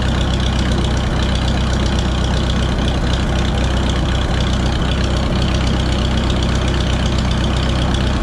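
Minneapolis-Moline ZB tractor engine idling steadily.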